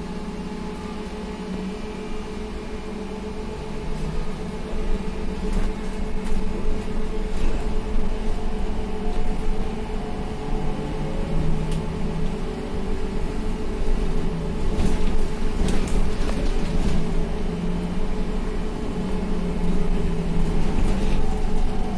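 Inside a SVARZ-MAZ-6275 trolleybus under way: a steady electrical hum with road rumble, getting louder about four seconds in, and a few short knocks and rattles.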